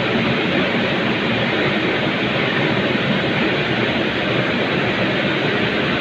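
Steady factory-floor background noise: an even rushing din with no separate knocks, clicks or changes.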